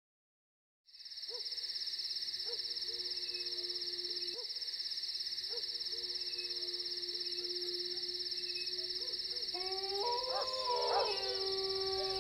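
Eerie night ambience from a horror film's sound design. After about a second of silence, a steady high chirring of insects sets in, under a low held tone with short hooting calls about once a second. Near the end several higher held tones enter as the score builds.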